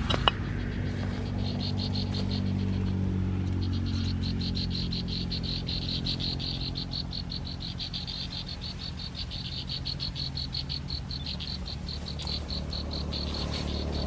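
A high, fast, evenly pulsed animal trill, about six or seven pulses a second, starting about a second and a half in and going on throughout, over a low steady hum. A sharp click sounds right at the start.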